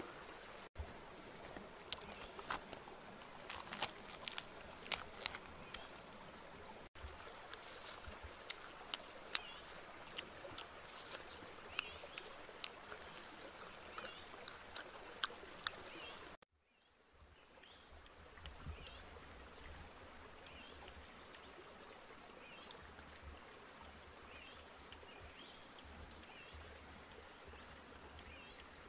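River stream flowing steadily, with many sharp clicks and crunches of fried chicken being chewed close by in the first half. After a short break about 16 s in, short chirps repeat about once a second over the water.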